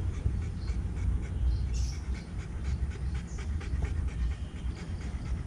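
Rottweiler panting with its tongue out, over a steady low rumble.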